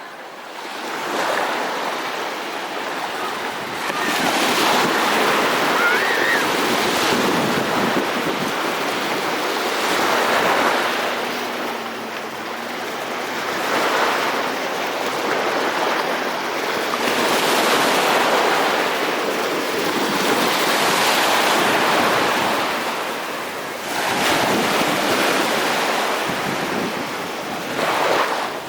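Sea of Azov waves washing in, surging and ebbing every few seconds, with wind rumbling on the microphone.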